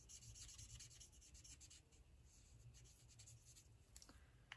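Faint scratching of an alcohol marker (Stampin' Blends) stroking over white cardstock in many short, quick strokes.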